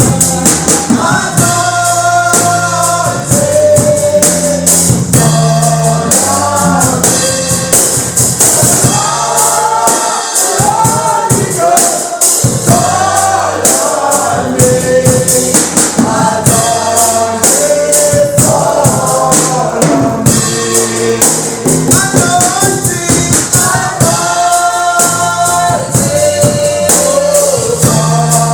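Gospel music: voices singing a melody over a steadily shaken tambourine, with drums and bass underneath.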